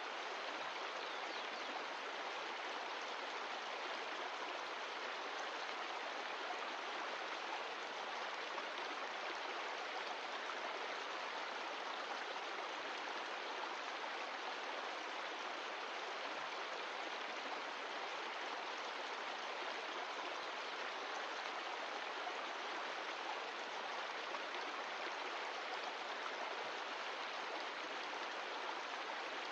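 Mountain stream of glacial meltwater rushing steadily over rocks, a constant even rush of water.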